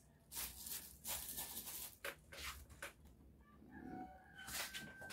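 Thin plastic bags rustling and crinkling as they are handled, in several short rustles over the first three seconds; a rooster starts crowing faintly about four seconds in.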